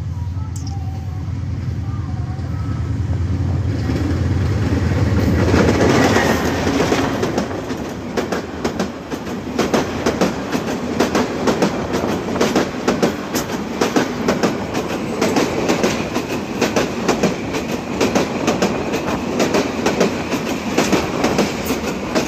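Diesel-hauled passenger train passing close by: the locomotive's low rumble grows as it approaches and is loudest about six seconds in. Then the coaches roll past with a rapid clickety-clack of wheels over the rail joints.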